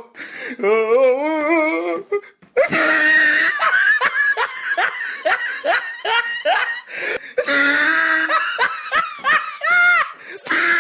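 Human laughter in quick repeated bursts of pitched "ha" sounds. A short break falls about two seconds in, and the laughing runs on without pause after it.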